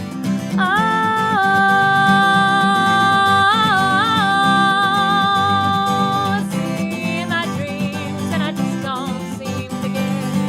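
Acoustic guitar band music, an instrumental break: strummed accompaniment under a lead line. The lead holds one long note, wavers in pitch twice around the middle, then moves into quicker, shorter notes.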